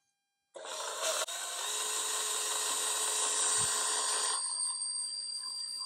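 Electric drill turning a Jiffy-type paint mixer head in a bucket of water: the drill starts about half a second in and runs steadily with a motor whine over a churning hiss. The hiss eases off about four and a half seconds in while the drill keeps running.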